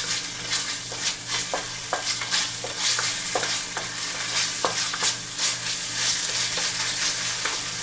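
Food sizzling in a hot pan while it is stirred, the utensil scraping and knocking against the pan about once or twice a second over a steady hiss.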